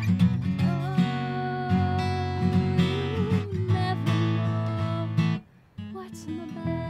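Song accompaniment led by a strummed acoustic guitar, with no singing, breaking off briefly about five and a half seconds in and then resuming.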